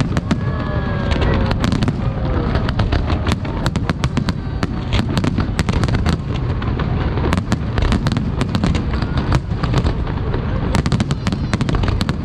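Large aerial fireworks display: a dense, continuous barrage of shell bursts and crackling, many sharp bangs a second over a deep booming rumble.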